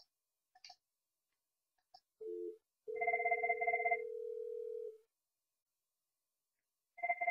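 Cisco IP softphones placing an internal call. Three short key clicks as the extension is dialed, then a brief beep. After that the called phone rings with a fast warbling ring about a second long, which repeats about four seconds later, and the caller's steady ringback tone sounds for about two seconds under the first ring.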